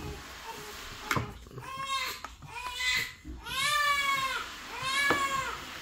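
Electric breast pump running through its suction cycles: a whine that rises and falls once per cycle, about every 1.2 s, with a sharp click about a second in.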